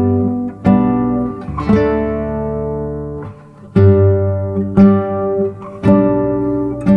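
Background music: an acoustic guitar strumming chords, a new chord about once a second, each ringing and fading before the next.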